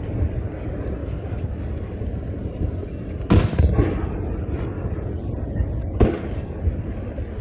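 Aerial firework shells bursting: a sharp bang about three seconds in, a second half a second later and a third near six seconds, each echoing briefly, over a steady low rumble.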